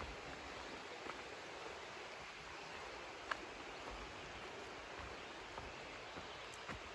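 Quiet forest ambience on a dirt trail while walking: a steady soft hiss with a few scattered light clicks, the sharpest about three seconds in.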